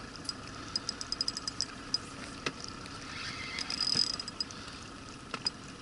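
Fishing reel ticking in quick runs as line is wound in while a hooked fish is played, over a steady hiss of river water and wind, with one sharp knock about two and a half seconds in.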